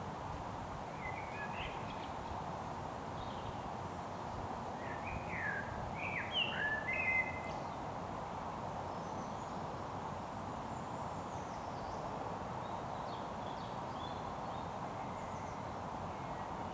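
Small songbirds chirping and singing short, quick phrases, loudest about five to seven seconds in, with fainter high calls later, over a steady background hum.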